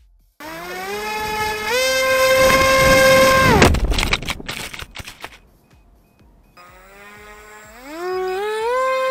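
A ZOHD Nano Talon's electric motor and propeller spinning up in steps to a high, steady whine. It cuts out about three and a half seconds in with a burst of rough rattling, then spins up again in steps near the end.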